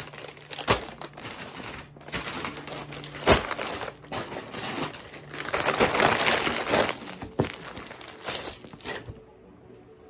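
Plastic courier mailer bags crinkling and rustling as they are handled and opened, with a few sharper, louder crackles along the way. The crinkling dies away shortly before the end.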